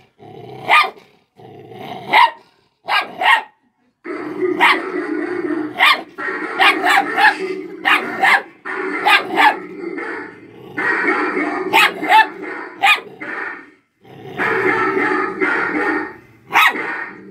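Black puppy barking at its own reflection in a mirror: many short, sharp barks in quick runs. Between the runs come longer stretches of steady low growling.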